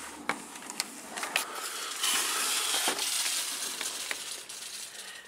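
Close handling noise: rustling and scraping with scattered sharp clicks, loudest about two to four seconds in.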